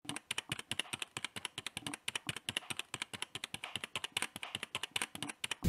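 Typing sound effect: rapid keyboard-style key clicks, about ten a second, as on-screen text is typed out letter by letter, stopping just before the end.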